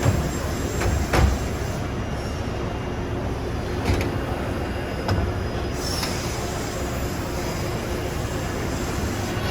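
CNC mandrel tube bender running a cycle: a steady mechanical hum and rumble with a few sharp clunks, about one, four and five seconds in.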